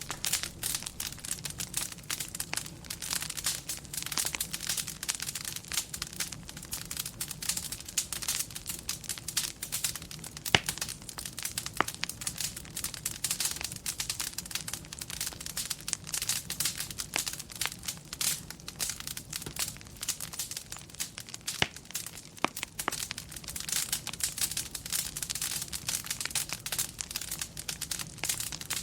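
Fireplace wood fire crackling: a dense, steady run of small pops and snaps, with a few sharper single pops along the way.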